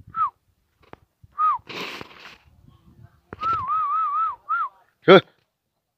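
A person whistling to call a dog: a few short downward-sliding whistles, then a warbling held whistle about three and a half seconds in. A rustling noise comes around two seconds in, and a short sharp call near the end.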